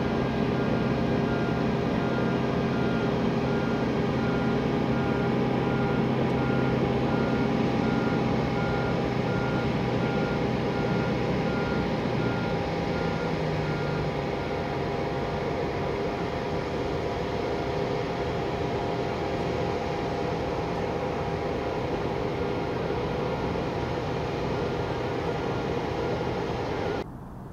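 Jet engines of an Airbus KC-30M tanker running steadily at low power, with a faint repeating beep on and off like a vehicle's reversing alarm. The sound cuts off abruptly near the end.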